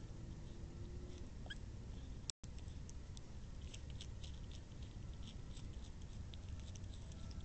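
Striped skunk foraging at close range: a run of small, quick clicks and crackles, thickest from about three seconds in, over a steady low rumble of camera noise. The sound cuts out completely for an instant about a third of the way through.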